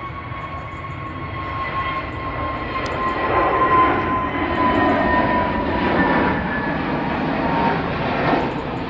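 Airbus A320neo jet engines on departure, a steady roar growing louder, with a high whine that slowly drops in pitch.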